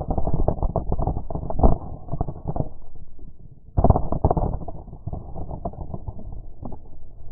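Muffled crackling, rustling and knocking from an action camera's housing rubbing through dry grass as the fallen road bike is shifted on the ground, with a short lull about three seconds in.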